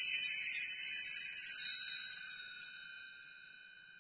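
Logo-intro chime sound effect: several high ringing tones held together, fading out in the last second or so.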